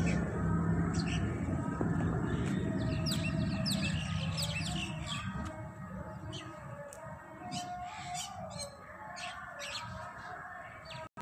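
Birds chirping in many short, quick calls over the low engine hum of a Maruti Suzuki Alto hatchback, which fades away as the car drives off.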